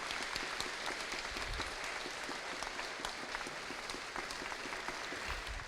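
Audience applauding steadily, many hands clapping at once in a gym, fading slightly near the end.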